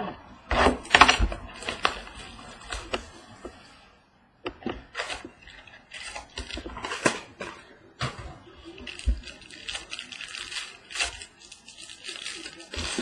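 Handling and opening a trading-card box, then tearing open and crinkling the foil wrapper of the card pack inside. There are a few sharp knocks in the first second or so, then scattered clicks and crackling foil through the second half.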